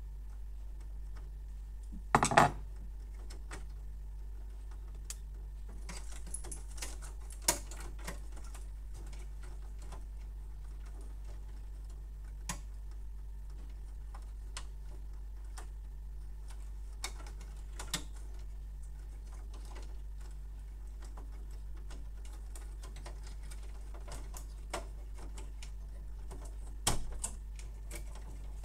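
Scattered light clicks and plastic rattles of wires and cables being pressed into the plastic clips and guides of a laser printer's chassis. There is a louder clatter about two seconds in and again near the end.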